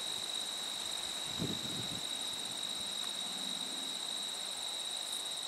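Steady high-pitched insect chorus of crickets trilling, a fast even pulsing over a constant whine, with a faint low hum about three seconds in.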